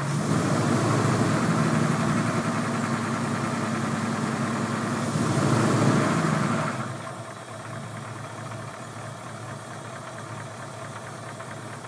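Ford 302 small-block V8 running at a fast idle, swelling briefly louder about five to six seconds in, then dropping to a quieter, lower idle about seven seconds in. One bore has a gouged cylinder wall and piston, which the owner blames for a diesel-like tap-tap chatter.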